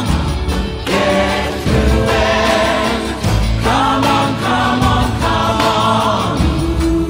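Background music: a choir singing held, gospel-style notes over instrumental backing with a steady bass.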